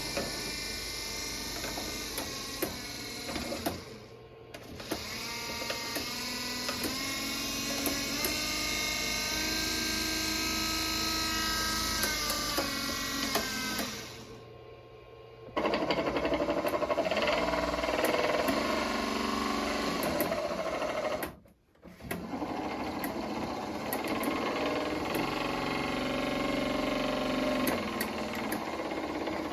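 Minn Kota Endura electric trolling motor running with a steady whine. It runs in several stretches, cutting out briefly about four, fifteen and twenty-two seconds in, and the pitch of the whine shifts partway through.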